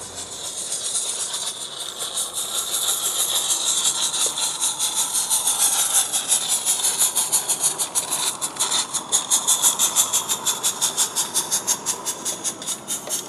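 Roundhouse 'Karen' 16 mm scale live-steam locomotive running past with rapid, even exhaust beats over a steam hiss, growing louder over the first few seconds as it approaches.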